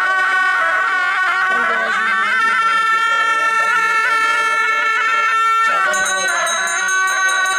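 A pair of gyaling, Tibetan monastic shawms, playing loud held notes with small ornaments, shifting to new pitches about two seconds in and again near six seconds.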